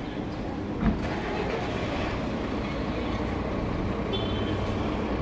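Steady low rumble of a city street with a single thump about a second in: the LaFerrari's butterfly door shutting.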